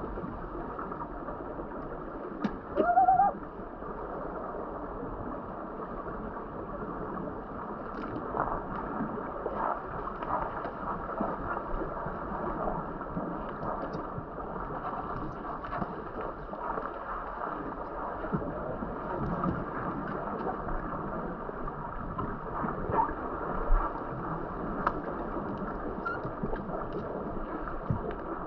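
Muffled underwater pool ambience picked up by a submerged camera: a steady dull hiss with scattered clicks and knocks and the gurgle of scuba exhaust bubbles, and a short rising tone about three seconds in.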